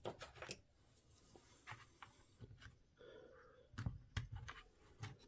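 Faint scattered clicks and light knocks of small parts being handled and fitted into the open housing of a cordless SDS hammer drill, with a short cluster of knocks about four seconds in.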